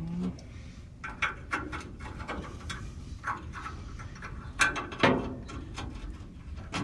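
Hand ratchet clicking in irregular short strokes, with a couple of louder metal knocks about five seconds in.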